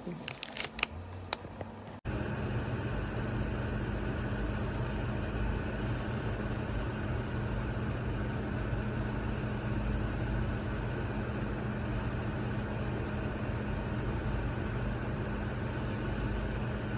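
Vornado TRANSOM window fan running steadily, an even rush of air over a low motor hum. It follows a few quick clicks of handling at the start.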